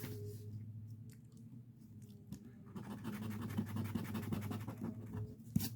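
A coin or scraper rubbing the coating off a lottery scratch ticket, scratching hardest from about three seconds in, with a sharp tap near the end, over a low steady hum.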